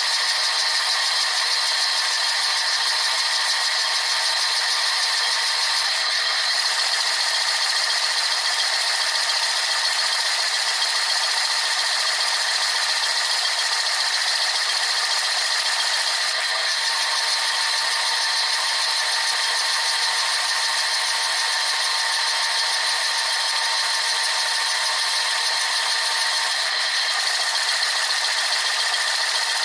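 Dishwasher running its wash cycle, heard from inside the tub: a steady hiss of water spraying and rattling, with a brief dip about every ten seconds.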